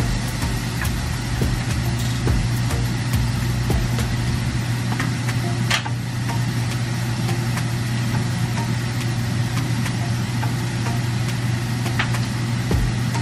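Shrimp frying in a pan, a steady sizzle with fine crackles over a constant low hum. A few light clicks of the spatula against the pan, the clearest about six seconds in and near the end.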